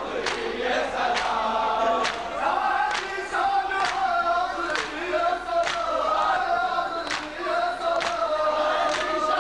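Men's voices chanting a Shia nauha (mourning lament) in unison, kept in time by sharp matam strikes from the mourners, a little more than one a second.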